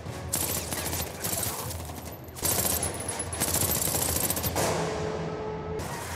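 Rapid gunfire in a film shootout, many shots close together, with score music underneath. About four and a half seconds in, the shooting stops and a steady held tone follows.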